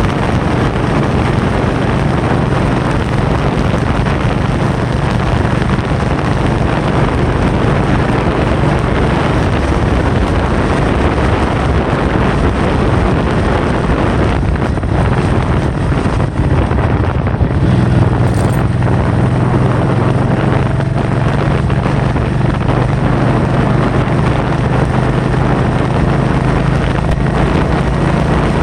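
Heavy wind noise battering the microphone, a loud continuous rushing over a steady low hum that grows a little stronger about two-thirds of the way through.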